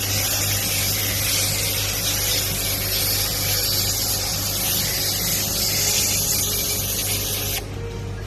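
Steady spraying hiss from a sprayer during heat pump cleaning, typical of spraying cleaner or water onto the unit's coil. It cuts off suddenly about a second before the end, over a low steady hum.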